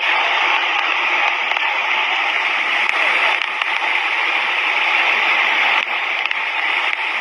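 Flood-swollen river rushing over rocks: a loud, steady, hissing rush of water with no deep rumble.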